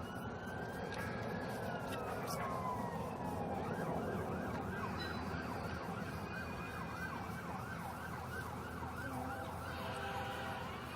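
Emergency vehicle siren sounding: a slow rising and falling wail, switching about three seconds in to a fast repeated yelp, then back to a slow wail near the end.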